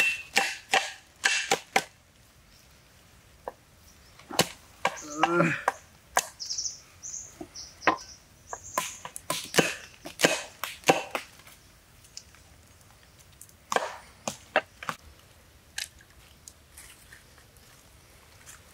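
Knife chopping on a wooden cutting board, a string of sharp, irregular chops in several short runs with pauses between them.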